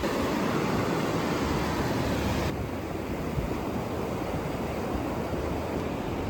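Ocean surf washing on the shore, a steady rush of noise. Its brighter hiss drops away suddenly about two and a half seconds in.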